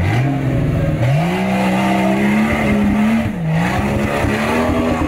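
Jeep Wrangler engine revved hard while the stuck off-roader strains to pull free from a tree. Its pitch climbs, dips briefly about a second in and again near three and a half seconds, then holds high.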